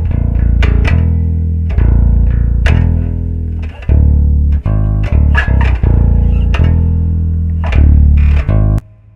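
Electric bass guitar fitted with a hand-wound pickup, playing a line of plucked low notes that ring between strikes, then stopping abruptly near the end.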